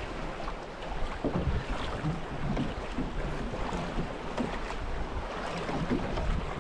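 River water rushing and slapping against a drift boat's hull, with wind on the microphone and scattered small knocks.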